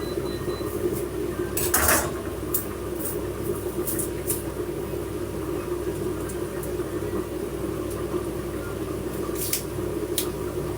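Kitchen pots and utensils clinking a few times, with short sharp clicks near 2, 3, 4 and 10 seconds in, over a steady low hum.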